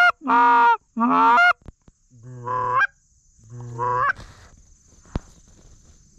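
Canada goose honking from a hand-blown goose call: three loud, close honks in quick succession, then two softer, drawn-out rising calls, and one more honk at the end.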